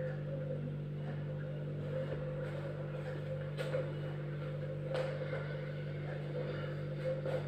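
Room tone: a steady low hum, with a few faint clicks.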